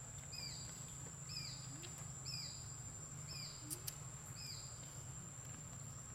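A bird calling about once a second, each call a short, high chirp that slides downward, over a steady high-pitched whine. Two sharp clicks come just short of four seconds in.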